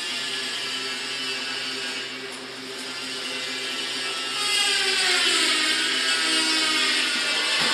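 Double-wire automatic chain link fence machine running: a steady motor hum with mechanical whirring. About halfway through it gets louder and a whine in it drops in pitch, then rises again, and a short knock comes near the end.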